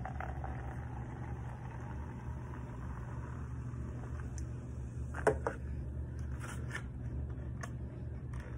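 Seltzer water pouring from an aluminium can into a plastic cup and fizzing, over a steady low hum. A couple of sharp knocks about five seconds in.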